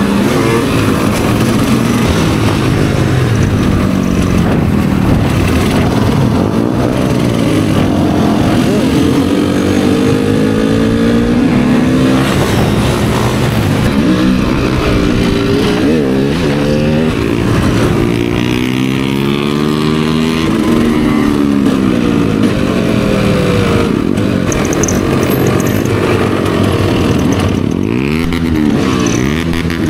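Several dirt bike and supermoto engines running at once, revving up and easing off again and again, their pitches overlapping.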